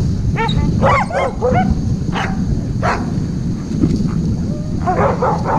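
Sled dogs yipping and barking in short, excited bursts: a cluster early on, a couple of single calls, then another cluster near the end. Under them runs a steady low rush of wind noise on the microphone.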